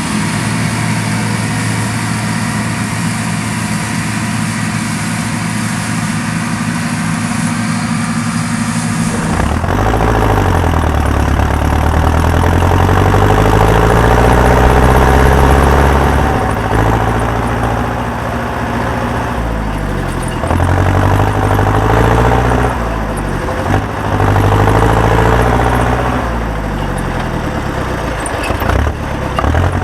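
Engine of a large farm harvest machine, running at a steady speed. About a third of the way in it becomes louder, and its speed then rises and falls repeatedly.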